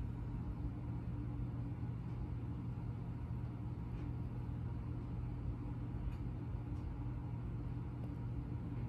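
Steady low hum with a faint hiss, background room noise, broken by a few faint ticks.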